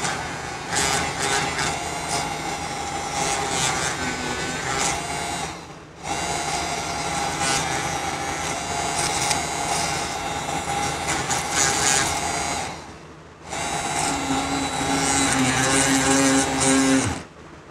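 Homemade mini drill, a 775 DC motor in a PVC pipe with a brass collet chuck, running with a steady whine and a scratchy grinding as a thin bit bores holes into a wooden block. It stops briefly twice, then starts again, and cuts off near the end.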